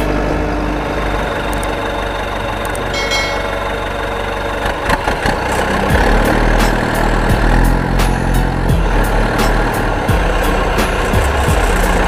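Steady engine-like idling rumble, a low, continuous running sound that gets a little louder about five seconds in.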